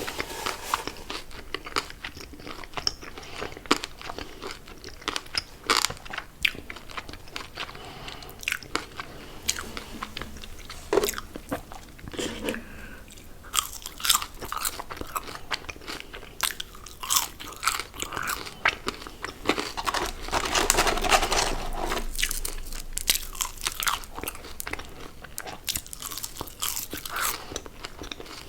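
A person chewing and biting fast food, with many sharp, crisp crunches. The chewing is dense and continuous for a couple of seconds about two-thirds of the way through.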